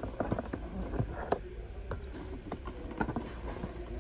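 Indoor shop background: a steady low hum with scattered, irregular light clicks and knocks.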